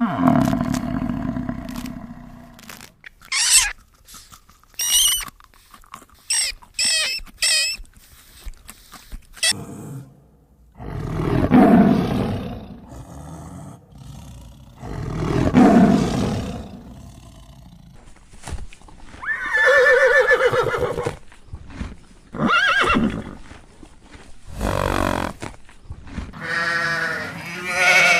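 A run of different animal calls one after another. Short high-pitched calls come in the first few seconds, two long deep calls about twelve and sixteen seconds in, then shorter pitched calls near the end.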